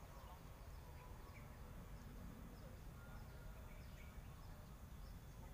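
Near-silent outdoor ambience: a steady low rumble with a few faint, short bird chirps scattered through it.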